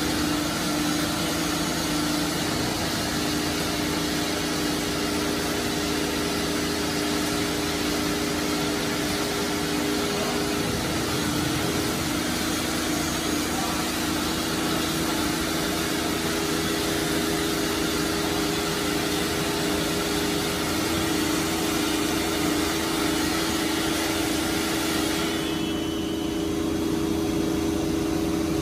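Four-spindle CNC nesting router running as it works a melamine-faced board: a steady spindle hum with a strong single tone under a wide hiss of the dust extraction and cutting. About 25 seconds in, the higher hiss drops away and the hum carries on.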